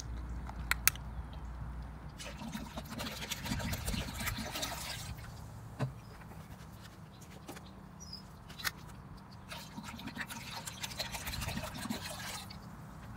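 Orange drink poured from large plastic bottles into a pot partly filled with water, splashing in two pours of about three seconds each. There are a few sharp clicks near the start.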